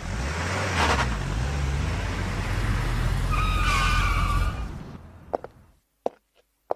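Car engine running as a convertible drives in, with a squeal of tires or brakes as it pulls to a stop about three and a half seconds in, then the engine dies away. A few short, sharp knocks follow near the end.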